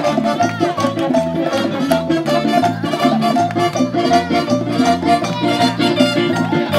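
Salsa music: a Latin dance band playing a steady rhythm with a repeating bass line.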